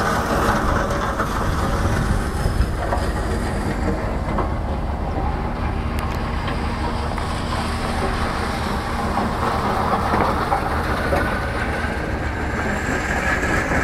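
Wind buffeting the microphone: a steady rush of noise with a heavy low rumble.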